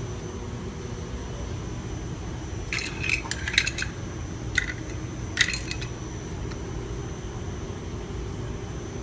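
A few light metallic clicks and clinks in short clusters, about three seconds in, then once more about four and a half seconds and five and a half seconds in, over a steady low hum.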